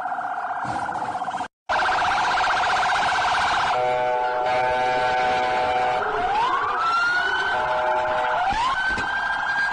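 Police car siren cycling through its modes: a rapid warble that cuts out briefly about a second and a half in, then a steady blaring tone, then two rising wails that climb and hold high.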